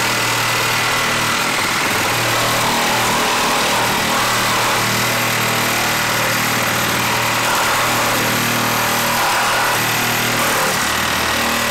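DeWalt XR compact brushless reciprocating saw running steadily under load, its Milwaukee carbide blade cutting through a 4x4 that has six screws driven into it.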